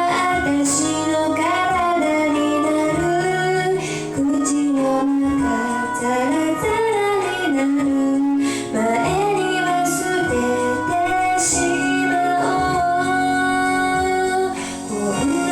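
A song: a female voice singing a melody over sustained instrumental backing.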